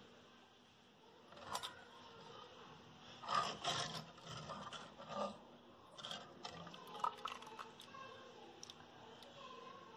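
Wire hand whisk and fingers scraping against a clay pot and splashing in churned buttermilk, in short irregular bursts, as the butter is gathered out; the loudest bursts come about three to four seconds in.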